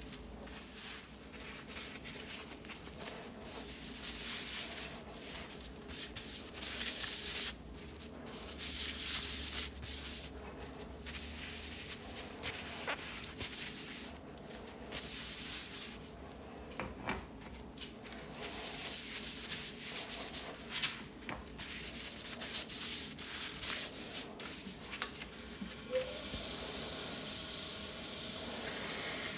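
Paper towel rubbing over the surface of a burl-and-resin bowl on a lathe, in uneven scratchy swishes as a wet finish is wiped on by hand. About 26 s in the lathe motor starts with a brief rising whine. The towel then rides against the spinning bowl with a steady hiss and a thin high whine.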